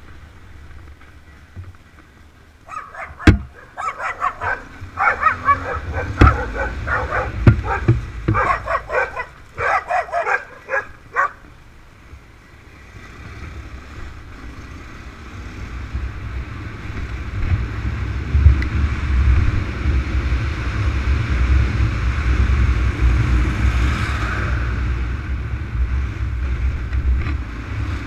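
A dog barking in quick, repeated bursts for about eight seconds, then the low rumble of a motorcycle engine and wind growing louder and staying steady.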